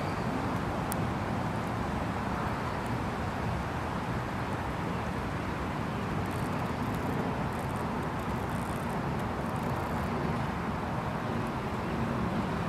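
Steady, even rumble of distant road traffic, with no distinct events standing out.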